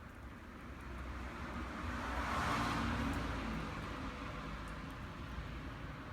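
A vehicle passing by: a rushing noise with a low rumble that swells, peaks about two and a half seconds in, and then slowly fades.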